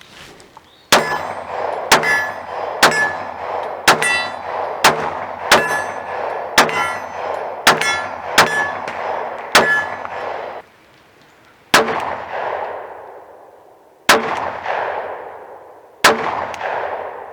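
A Black Rain Ordnance Front Line 9mm pistol fired in a steady string: ten shots about a second apart, then, after a short pause, three slower shots about two seconds apart. A brief metallic ring follows each of the early shots.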